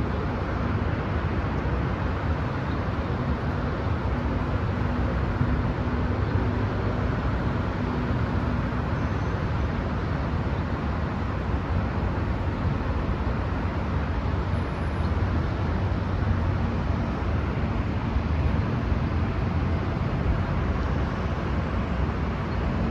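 Steady road traffic noise: a continuous low rumble of vehicles running on the road, without distinct passes or horns.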